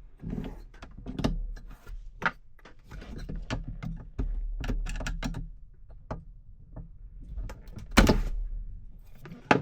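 A stuck interior fitting being wrestled loose by hand: a string of knocks, clunks and scrapes, with one loud thunk about eight seconds in.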